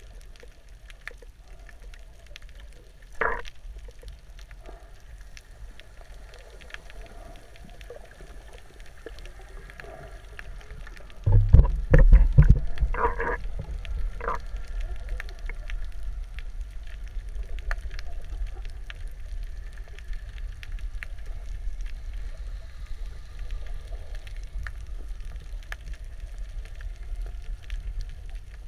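Underwater ambience heard through the camera: a low rumble with a steady crackle of faint clicks. A few short squeaks come about three seconds in and again around thirteen seconds, and a loud low rush of water against the camera comes about eleven seconds in.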